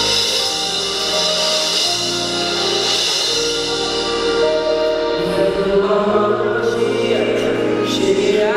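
A pagode band playing a slow song live, with held chords over a bass line. A male voice sings the melody from about halfway through.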